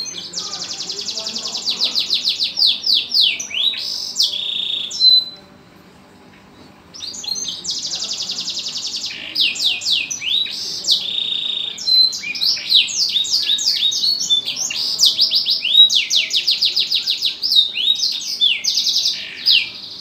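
Domestic canary singing vigorously: long phrases of rapid high trills and sweeping notes, broken by one pause of about two seconds not long after the start.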